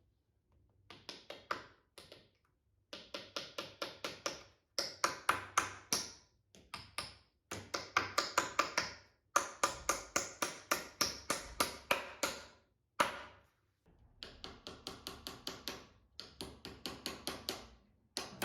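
Quick runs of hammer taps, about five a second in bursts with short pauses, driving plastic glides into the bottoms of solid pine bed legs; each strike rings briefly.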